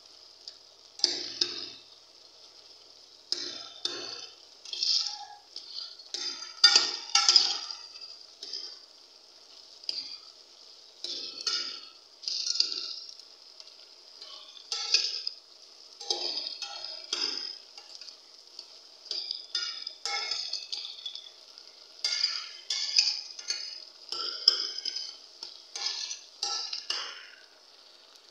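A steel ladle stirring and scraping grated carrots around an aluminium pressure cooker pan in irregular strokes every second or two, with the carrots sizzling as they cook.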